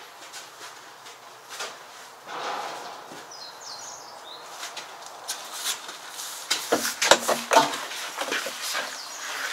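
Handling clicks and knocks, loudest about seven seconds in, as the tractor's glass cab door is swung open and a yellow plastic fuel can is brought up to refuel it.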